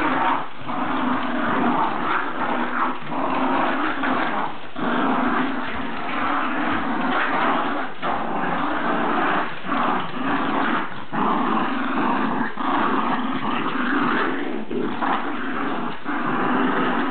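Jack Russell terriers growling almost without pause as they play tug-of-war over a toy, broken by a few brief gaps.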